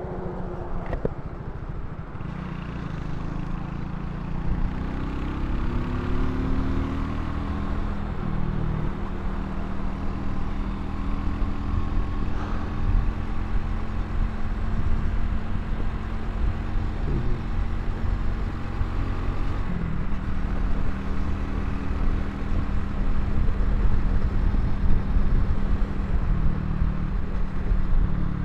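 Vitacci XMT 250 single-cylinder motorcycle engine running under way as the bike accelerates, its pitch climbing about five seconds in and then holding fairly steady, over a constant rush of wind on the microphone.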